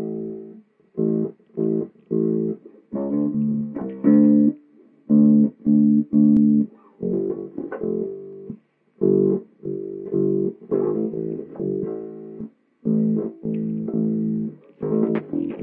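Freshly assembled semi-hollow electric bass guitar played fingerstyle in a test run after preliminary assembly: a string of plucked notes and short phrases with brief pauses between them.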